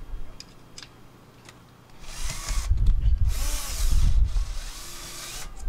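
Cordless drill running with its bit in a kayak's rudder blade, in two runs after a few faint clicks: a short one about two seconds in, then a longer one of about two seconds, its motor pitch rising and falling.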